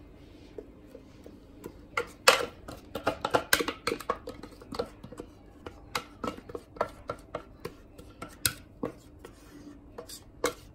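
A spatula scraping and knocking against the steel bowl of a kitchen robot as thick batter is emptied into a cake tin. The scrapes and clicks come in an irregular run, starting about two seconds in.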